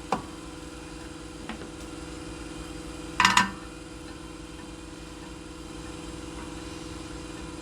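A steady machine hum, with a sharp clink about three seconds in.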